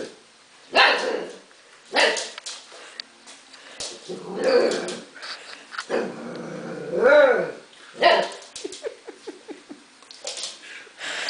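Husky puppy play-barking in about six short, separate bursts, with one longer call that rises and falls in pitch about two-thirds of the way through.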